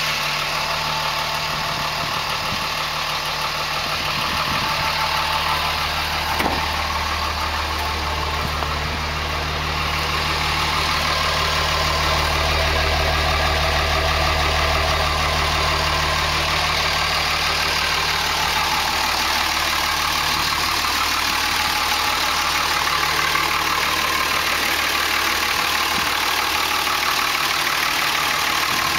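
All-stock 2004 Dodge Ram three-quarter-ton's common-rail Cummins 5.9-litre turbo-diesel inline-six idling steadily through its stock exhaust. The low exhaust note is heavier for a stretch in the middle, close to the tailpipe.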